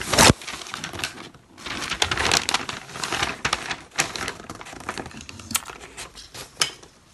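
Gift-wrapping paper crinkling and rustling as it is folded around a cardboard box by hand, with irregular crackles and taps; one loud rustle at the very start, busiest in the first half and sparser near the end.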